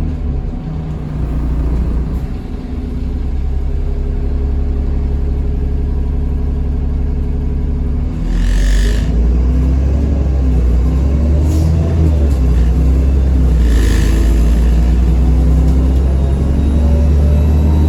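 Double-decker bus engine of an ADL Enviro400 on a Dennis Trident 2 chassis with a ZF Ecomat five-speed automatic, running under way and heard from inside the bus. It eases off briefly about eight seconds in, then pulls again with a heavier rumble. Three short hisses of air come and go in the second half.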